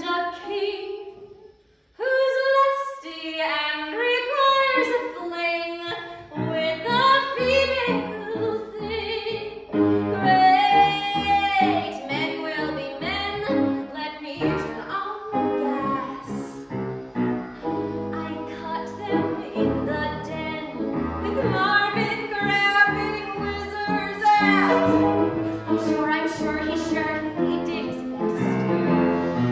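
A woman singing a musical-theatre song, a short sung phrase, a brief pause, then continuous singing. Instrumental accompaniment joins underneath about six seconds in.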